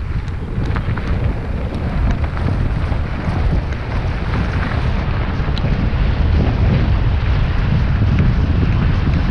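Wind buffeting the microphone of a camera on a mountain bike running down a dirt trail, over a heavy rumble of tyres on the dirt, with scattered small clicks and rattles. It grows a little louder as the run goes on.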